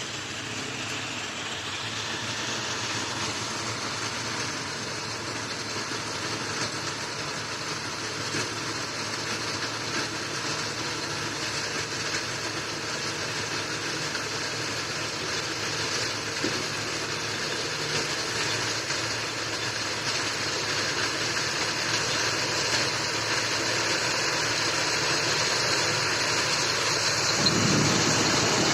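John Deere rice combine harvester running steadily, its engine and threshing machinery making a dense, even din that grows gradually louder.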